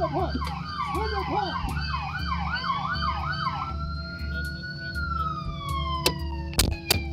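Police car sirens: one on a fast warbling yelp that stops about halfway through, and another on a slower wail that rises and then falls away. A low vehicle rumble runs beneath them, and a few sharp knocks come near the end.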